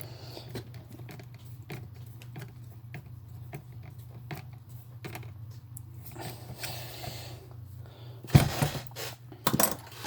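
Small screw being driven by hand with a screwdriver into a plastic RC car shock mount: light irregular clicks and scrapes, with two louder knocks near the end as parts are handled, over a steady low hum.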